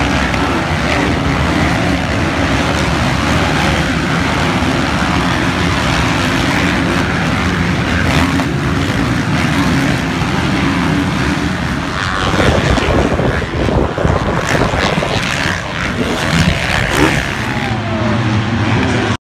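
Pack of motocross bikes racing, many engines blending into a steady drone with revs rising and falling. About twelve seconds in it turns louder and more uneven, then cuts off suddenly near the end.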